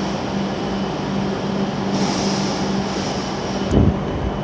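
W7 series Shinkansen train standing at the platform, its onboard equipment running with a steady hiss and a steady low hum. A short low thump about four seconds in.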